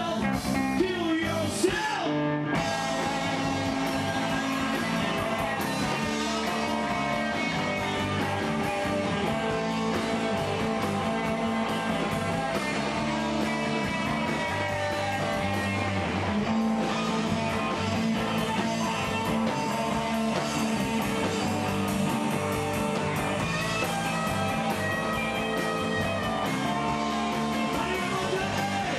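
A rock band playing live, with electric guitar and a steady drum beat, at an even loudness.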